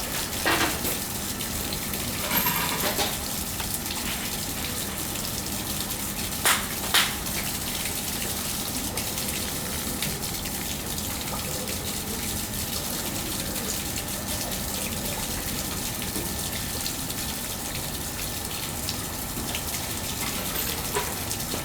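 Small stream flowing steadily over stones, a continuous babbling rush of water. A few brief sharper sounds cut through it: one about half a second in, a cluster a few seconds in, and two close together about seven seconds in.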